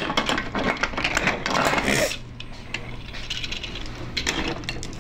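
Hard plastic LEGO DUPLO bricks and train pieces clicking and clattering as they are handled, with a brief rustle about two seconds in and a quieter stretch before more clicks near the end.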